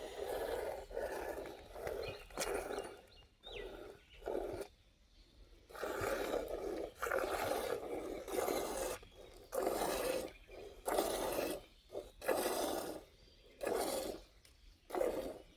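A cow being milked: jets of milk squirting into a pail in repeated swishing bursts, roughly one a second, with short pauses between runs.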